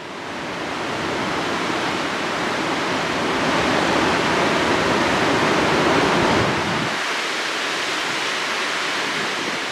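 White-water river rapids rushing steadily over rocks, fading in over the first second. A low rumble under the rush drops away about seven seconds in.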